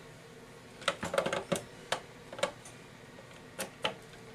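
Short, sharp clicks and taps of a screwdriver's flat side pressing a new screen cable into its plastic connector inside a Zebra ZD500 label printer: a quick cluster about a second in, then scattered single clicks.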